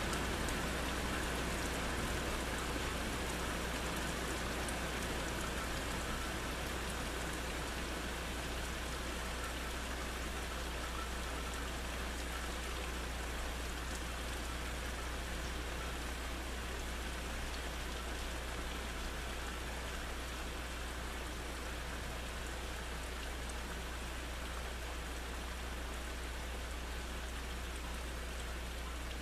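Steady rain falling on trees and the ground during a thunderstorm, an even hiss that eases slightly over the stretch, with a steady low rumble underneath.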